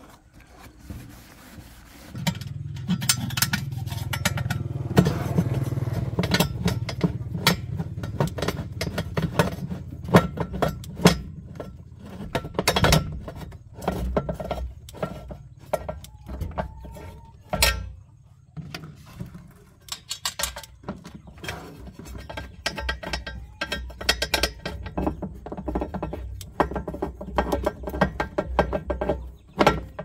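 Hand tools clinking and scraping against a washing machine's metal motor-mounting bracket and bolts, many irregular knocks and clicks. A low steady hum runs under the clinks for about the first half, then stops.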